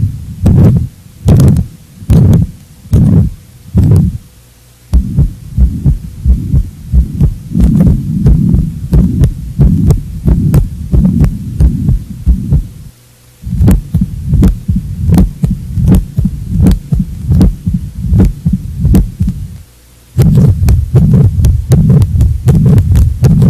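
Stethoscope recordings of heart sounds from diseased heart valves, played one after another as teaching examples. It opens with separate low heartbeats a little over one a second. After short pauses come three stretches where the beats run together with continuous murmur sound between them, the blowing sound of turbulent blood flow through a damaged valve.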